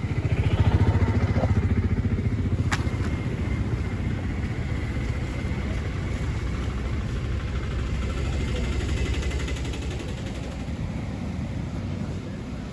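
An engine running close by with a fast, even low pulse, loudest in the first couple of seconds and easing off toward the end, with one sharp click about three seconds in.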